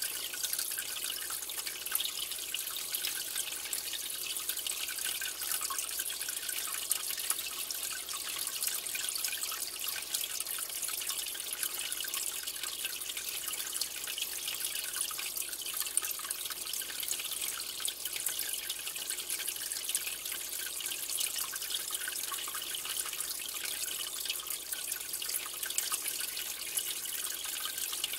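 Aquarium water trickling and bubbling steadily, a constant fine splashing with a crackle of tiny drips.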